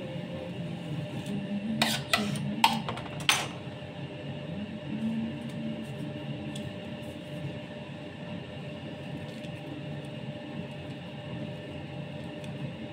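Four sharp clicks of a metal palette knife being put down on the work table, about two to three and a half seconds in, over a steady low hum.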